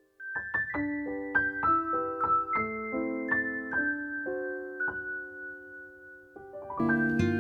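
Background music: a slow piano melody of single struck notes, starting after a brief silence. Near the end a fuller, louder track comes in.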